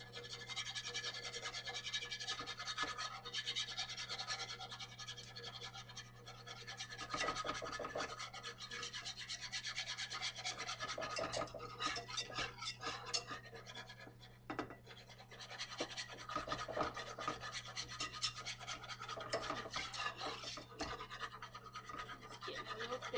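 Wire whisk scraping and clicking rapidly against a metal skillet as flour is whisked into hot oil for a gravy roux, with a steady low hum underneath.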